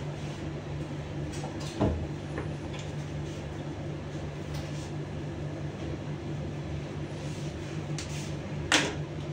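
Steady low electrical hum of room tone, broken by a few brief knocks, the loudest near the end.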